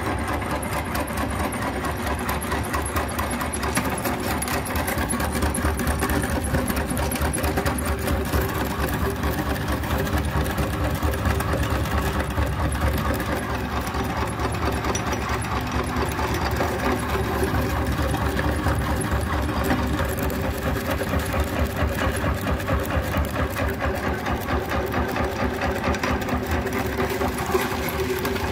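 Electric meat grinder running steadily: a constant low motor hum with a fast, even rattle over it.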